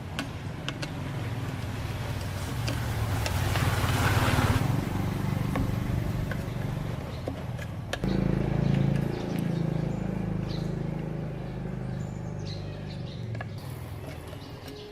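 A machine running with a steady low, pitched hum; a burst of hissing noise swells around three to four seconds in, and the sound changes abruptly about eight seconds in.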